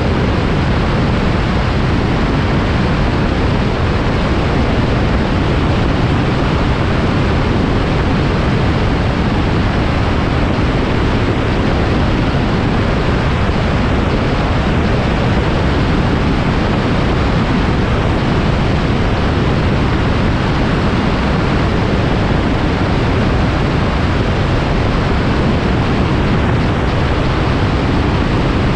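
Microlight aircraft in flight: a loud, steady rush of wind and engine noise that does not change.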